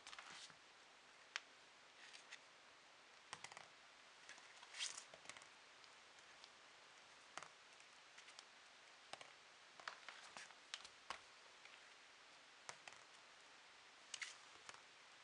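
Faint, scattered clicks and scratches of a cat playing on a linoleum floor, its claws and a small ball tapping and scraping the floor, coming irregularly every second or so, sometimes in quick clusters.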